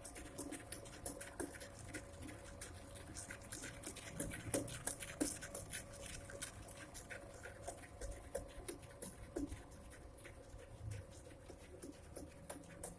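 DIY pottery wheel driven through a speed-reducing pulley and gearbox, its motor running with a steady hum and many irregular light clicks and ticks throughout.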